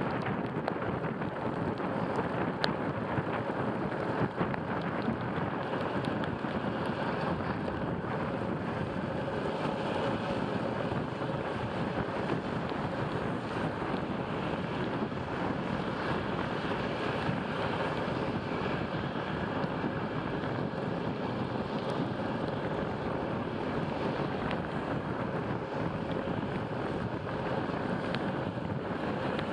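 Steady rush of wind over the microphone during a bicycle ride in the rain, with a couple of faint clicks a few seconds in.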